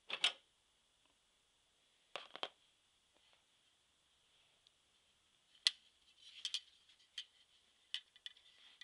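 Metal slide carrier of a vintage Argus slide projector clicking and clinking as it is slid out and handled. There is a sharp click at the start, a quick double click about two seconds in, then a scattered run of lighter clicks through the second half.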